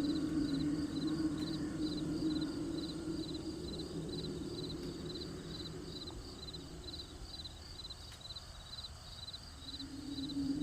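Crickets chirping in an even rhythm, about two chirps a second. Under them runs a low steady hum that fades away in the second half and returns near the end.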